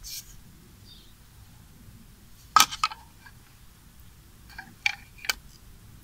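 Sharp clicks and taps of hard plastic as the detached lid of a MagSafe 2 charger's casing is handled and set down. There is a quick cluster of clicks about two and a half seconds in, the loudest sound, then three lighter taps near the end.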